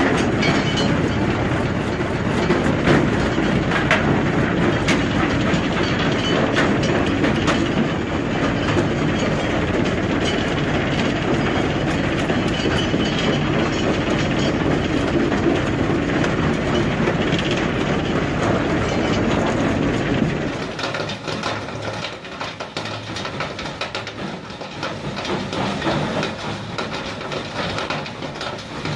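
Stone jaw crusher taking in and breaking large rocks: a dense, steady clatter and rumble of stone knocking and grinding against steel. About two-thirds of the way through it drops to a quieter running with scattered knocks.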